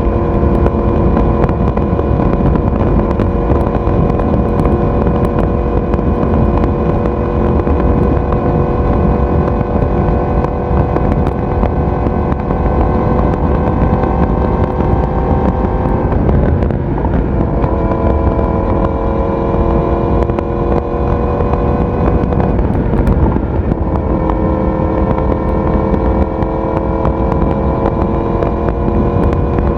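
Yamaha YZF-R1 crossplane inline-four running steadily at cruise, heard through its exhaust. The note drifts slowly, then breaks briefly and resettles twice: about halfway through and again about three-quarters of the way through.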